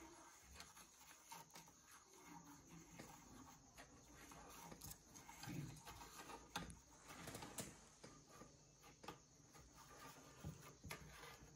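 Near silence broken by faint, scattered light taps and scrapes: a kitten's paws and a metal pen knocking and sliding on a tabletop, a few times a second at most.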